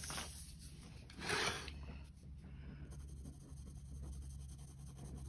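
Pencil shading on sketchbook paper: graphite rubbing in faint, steady scratchy strokes. Near the start come two brief louder swishes of a paper sheet being slid across the desk.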